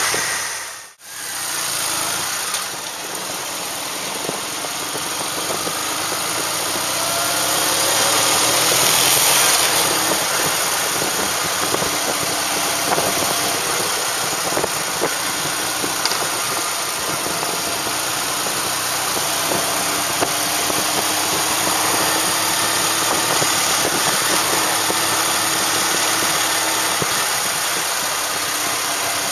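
Kawasaki W650's air-cooled parallel-twin engine running while riding in town traffic, under a steady rush of wind noise. The sound drops out briefly about a second in, and the engine pitch rises slowly over the last few seconds.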